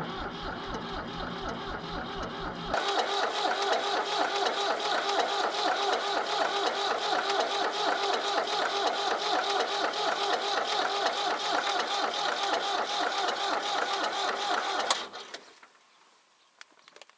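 A 1966 Ford 4000 tractor's diesel engine being cranked over by its starter in freezing cold, turning over in a fast, even rhythm without catching. The cranking stops about fifteen seconds in; the engine has not started.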